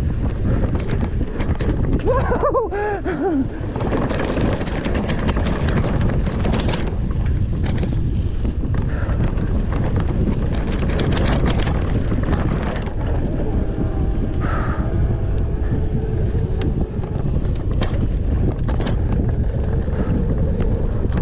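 Wind rushing over the microphone of a mountain bike's handlebar camera, with tyre noise on a dirt trail and frequent sharp rattling clicks from the bike over bumps. A brief pitched sound falls in pitch about two seconds in.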